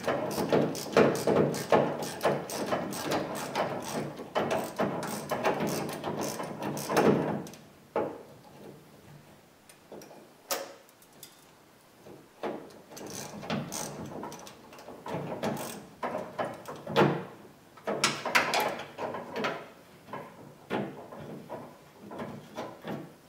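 Locking pliers clamping onto rusted metal studs and twisting them out of a plastic grille: irregular metal clicks, scrapes and rattles, busy for the first several seconds and then sparser.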